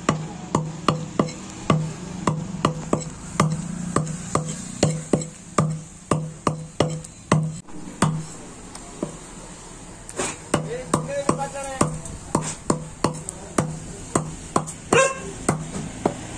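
Heavy steel cleaver chopping goat offal on a wooden log chopping block, a steady run of about two to three chops a second.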